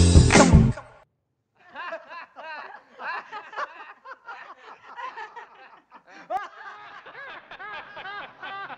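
A song with singing ends abruptly about a second in. After a short gap, several people laugh together, giggling and chuckling.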